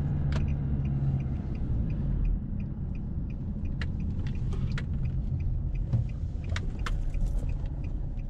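Car driving, heard from inside the cabin: a steady low road and engine rumble, with faint regular ticking about three times a second and a few sharp knocks.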